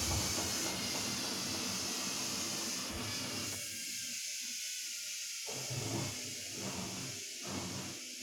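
Samsung P1271 washing machine giving a steady hiss with a low hum, slowly fading.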